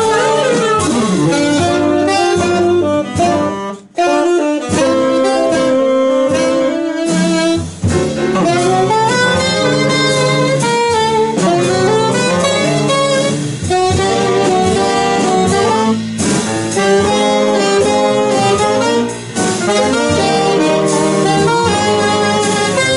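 Live jazz saxophone section, an alto and two tenor saxophones, playing a melody together in harmony, backed by piano, double bass and drums. The music breaks off for a moment about four seconds in, then carries on.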